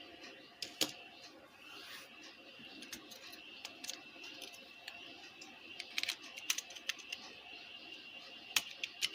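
Scattered small clicks and taps from handling and fitting the plastic front panel and circuit board of a car stereo, over a faint steady high whine.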